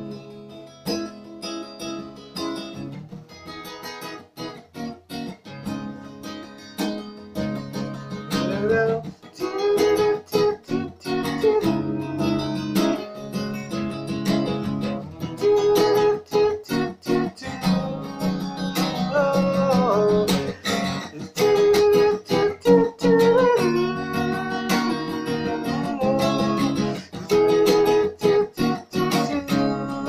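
Acoustic guitar with a capo strummed and picked in a steady rhythm, with a man's voice singing along from about nine seconds in.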